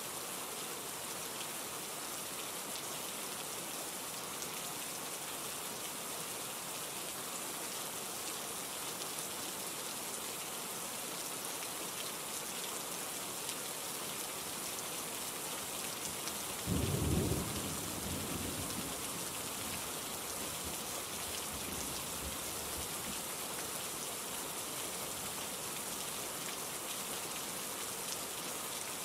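Steady rain falling, with a sudden clap of thunder a little past halfway that rumbles away over a few seconds.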